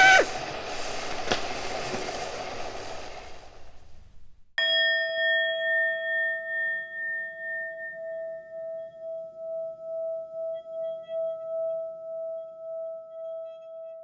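Tail of an electric hand drill: its motor whine stops just after the start and the remaining noise fades out over about four seconds. About four and a half seconds in, a single struck bell-like chime rings out, with a long, wavering decay.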